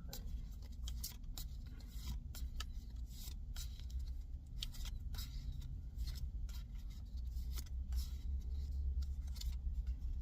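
A Pokémon trading-card booster pack being opened and its cards handled: irregular crinkling of the foil wrapper and quick flicks and rubs of cards, over a steady low rumble.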